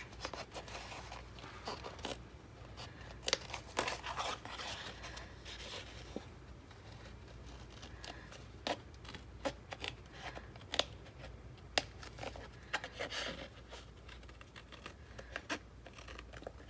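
Scissors cutting through a thick, paint-layered art-journal page: a string of short, irregular snips with light paper rustling as a window opening is cut out.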